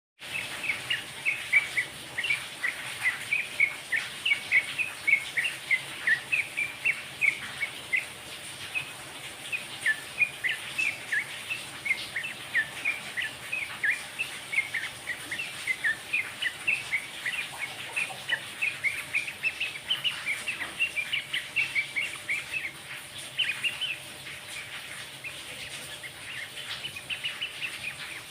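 A kerocokan, the Javanese name for a bulbul, chattering continuously in rapid short chirpy notes, several a second. A faint steady high whine runs underneath.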